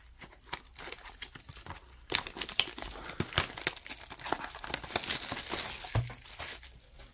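Plastic shrink-wrap on a Donruss football card blaster box being torn and crinkled off by hand. Sparse crackles at first, then a dense run of crinkling starting about two seconds in.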